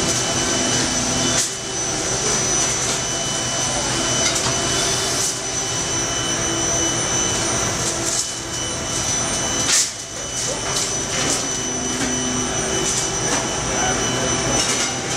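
Star SV-32J CNC Swiss-type screw machine running under coolant: a steady machine hum with a thin, steady high whine, broken by a few sharp knocks, one a little after the start and one about two-thirds of the way through.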